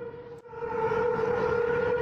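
A steady, droning horn-like tone with a low rumbling haze beneath it, fading in about half a second in. It is an amateur recording of the so-called mysterious sky sounds.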